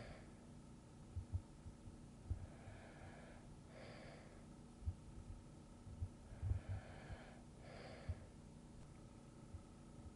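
A person breathing slowly and softly as in sleep, about one breath every four seconds, each a quiet draw followed by a short, brighter breath out. A few faint low thumps fall between the breaths.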